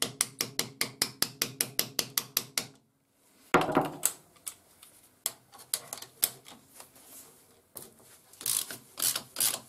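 Socket ratchet clicking rapidly, about six clicks a second, as it backs off the nuts on the axle tube flange of a VW Beetle swing-axle gearbox. It stops about three seconds in and a sharp metal knock follows, then scattered clicks. Fast ratcheting resumes near the end.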